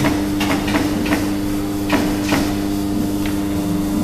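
Busbar punching machine humming steadily while steel tooling is handled at the punch and die, giving a series of sharp clicks and knocks as the stripper is set in place.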